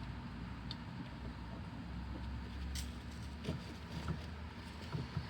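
Faint handling noises of insulated copper wire being worked by hand, with a few light clicks and ticks, over a steady low background rumble.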